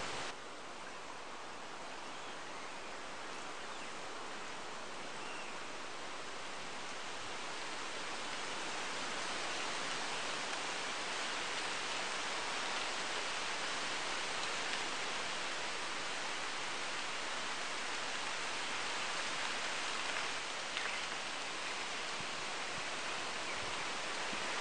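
A steady, even rushing noise that grows slowly louder, with one faint click near the end.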